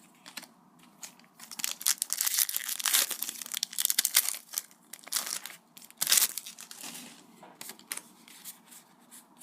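Pokémon Flashfire booster pack wrapper being torn open and crinkled: a dense run of crackling for about two seconds, a sharp crinkle about six seconds in, then light rustling and clicks as the pack is handled.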